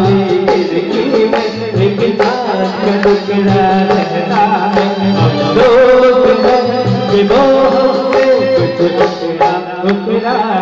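A song: a voice singing over a steady rhythmic beat, with steady low accompanying notes.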